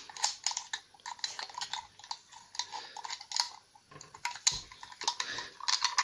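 Cheap dial combination padlock being handled, its dial clicking as it is spun by hand: a run of irregular light clicks and small metallic rattles.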